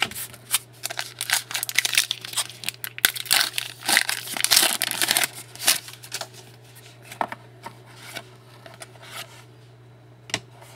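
Plastic trading-card packaging crinkling and crackling as it is handled and pulled apart, busiest in the first half and thinning out toward the end.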